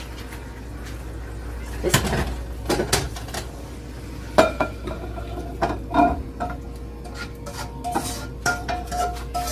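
A ladle scraping and knocking against a wok as cooked beef is scooped out and tipped into a glass bowl: a run of irregular clinks and scrapes, some ringing briefly.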